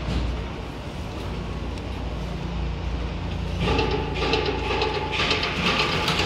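Compact glass-lifting machine with vacuum cups running with a steady low motor hum. About three and a half seconds in, a louder mechanical whine with a hiss over it comes in and goes on in surges as the machine works.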